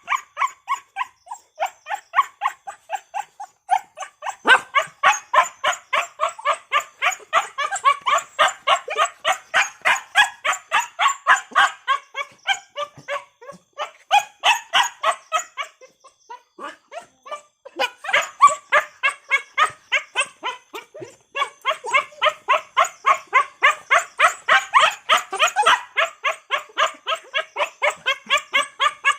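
A dog barking in a fast, steady string of short, high-pitched barks, about four a second, breaking off for a couple of seconds past the middle and then starting again.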